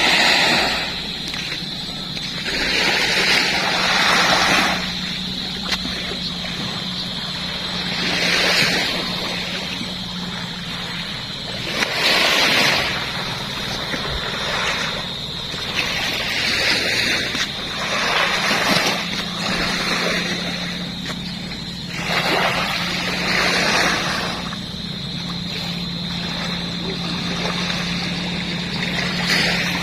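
Small waves breaking and washing up on a beach, a surge every few seconds, over a steady low hum and a thin steady high-pitched tone.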